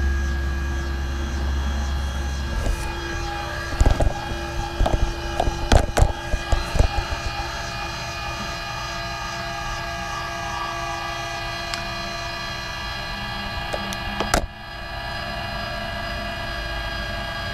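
12-volt linear actuator running steadily with a high, even motor whine as it drives a sliding chicken-coop door open. A cluster of clicks and knocks comes about four to seven seconds in.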